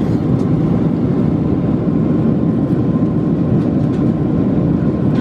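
Steady, loud engine and airflow noise of a Boeing 747-436 with Rolls-Royce engines, heard from inside the passenger cabin near the wing, with a faint steady whine running through it.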